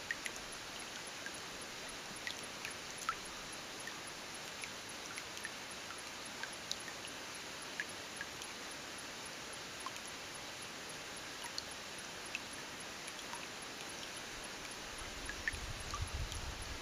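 Snowmelt dripping from a snow-covered log into a shallow stream: scattered small plinks at irregular times over a faint, steady trickle of water. A low rumble starts near the end.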